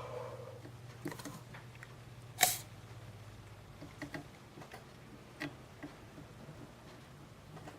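Light clicks and taps of hand tools working on a circuit board during desoldering, with one louder sharp click about two and a half seconds in. A low hum fades out about three seconds in.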